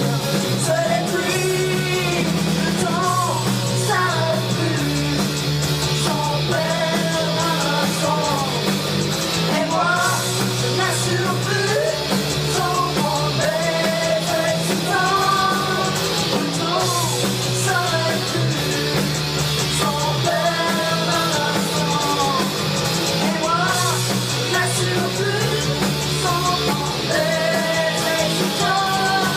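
Rock song with a singing voice over bass, guitar and drums, at a steady loud level.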